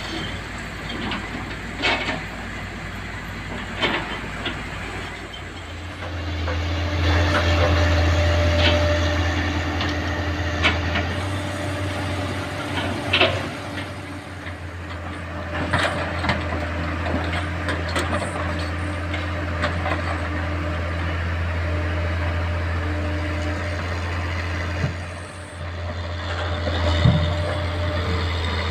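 Excavator diesel engine running at a steady pitch, louder from about six seconds in, with scattered knocks and clanks from the bucket and material.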